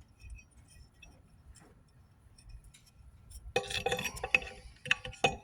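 Metal parts clinking and rattling as they are handled. There are faint ticks at first, then a burst of clinks with brief ringing about three and a half seconds in, and a couple more clicks near the end.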